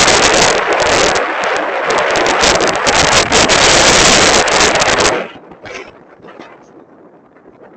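Loud wind buffeting the microphone: a rushing, crackling noise that cuts off suddenly about five seconds in.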